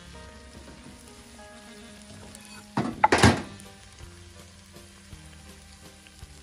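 Noodles sizzling in a large metal pan while they are tossed with metal tongs. About three seconds in there is a short, loud clatter of the tongs against the pan.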